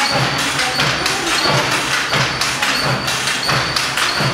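Wooden handlooms weaving, an uneven clatter of knocks and thuds about two or three a second as beaters strike the weft and shuttles pass.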